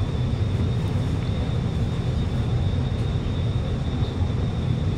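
Steady low hum inside a stationary Alstom Movia R151 metro car, its air-conditioning and onboard equipment running while it waits at the platform, with a faint steady high whine above it.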